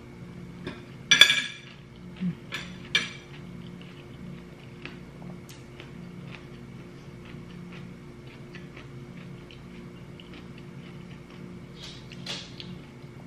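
Metal spoon and fork clinking against a ceramic plate: one loud ringing clink about a second in and a few lighter knocks soon after. Then only faint small clicks of eating.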